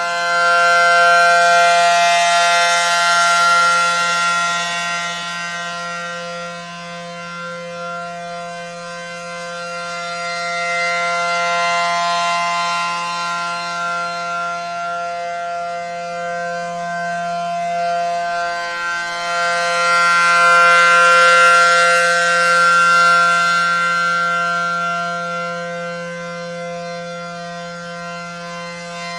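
ACA Allertor-125 15HP rotating outdoor warning siren sounding the steady alert signal, a loud constant-pitch tone. It swells and fades twice as the rotating siren head sweeps toward and away, loudest near the start and again about two thirds of the way in.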